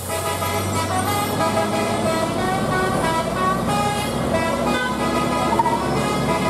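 Vehicle horns tooting in short notes of changing pitch over a steady low engine hum from passing traffic.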